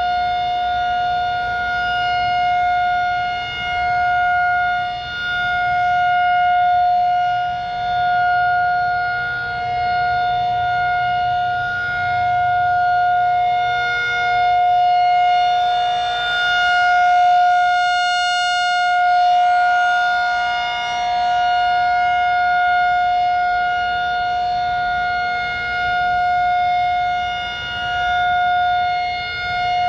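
1999 Federal Signal 2001-SRN outdoor warning siren sounding the steady alert signal: one held tone at a constant pitch, swelling and fading every few seconds as the rotating siren head turns, loudest about eighteen seconds in.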